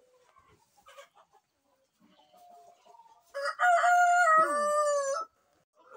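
A rooster crowing once, a single long crow starting about three seconds in and lasting about two seconds, held at one pitch and dropping slightly at the end.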